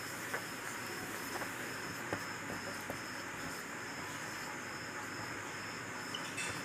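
Steady high trill of crickets in the background over a faint hiss, with a few soft ticks of a marker on a whiteboard.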